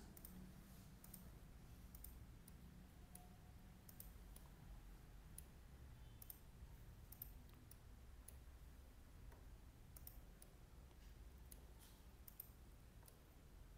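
Faint computer mouse clicks, many of them at irregular intervals, over a faint low hum.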